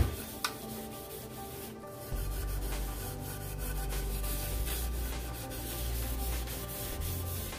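Scotch-Brite scouring pad with toothpaste scrubbing the plastic body of a mixer grinder, a steady rubbing that gets louder about two seconds in.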